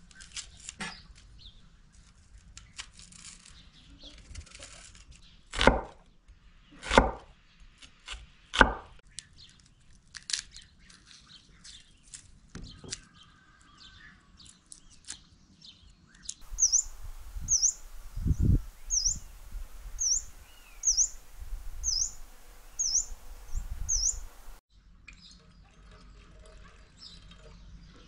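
Small clicks and scrapes of knife and food handling on a wooden board, with three sharp knocks. Then, for about eight seconds, a small bird repeats a short high chirp about every three-quarters of a second over a background hiss, with one low thud.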